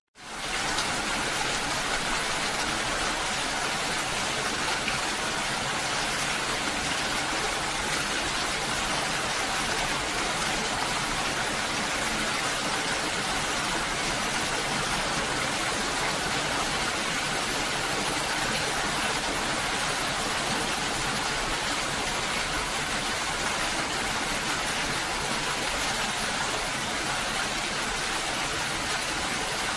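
Steady rainfall, an even hiss with no single drops or other sounds standing out, fading in over the first half-second.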